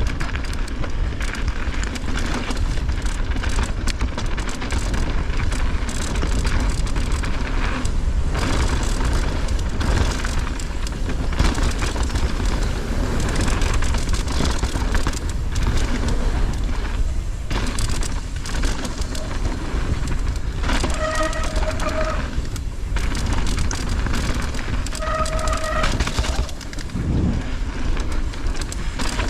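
Hardtail mountain bike riding a downhill dirt trail: wind buffeting the microphone, tyres on dirt, and the bike rattling and clattering over bumps. Two short tones, each about a second long, sound about four seconds apart near the end.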